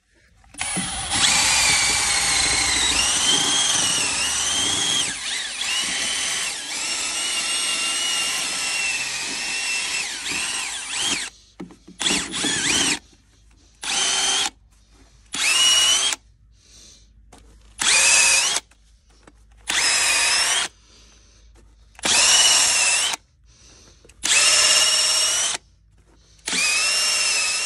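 Cordless drill spinning a foam polishing cone against an aluminum truck wheel: a motor whine that rises in pitch as it spins up, running steadily for about ten seconds, then started and stopped in a string of short bursts of about a second each.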